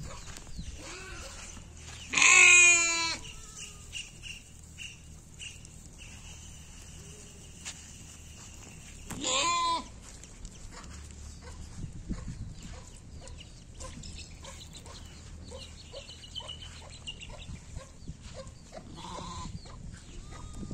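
Bannur (Mandya) lambs bleating: two loud, wavering bleats of about a second each, the first about two seconds in and the second some seven seconds later.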